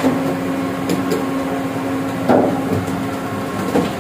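Steady machine hum holding one low tone, with a few light clicks about a second in and two short, louder scuffing noises about halfway and near the end.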